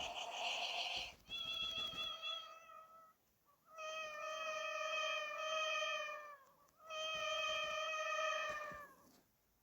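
Recorded cat meows played back through a tablet speaker: four long, drawn-out wavering meows with short gaps between them.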